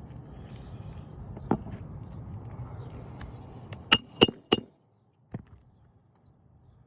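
Hand tools being worked on asphalt roof shingles: a steady rustle of handling, then sharp clinks with a brief ring, three in quick succession about four seconds in, with a single click before and one after.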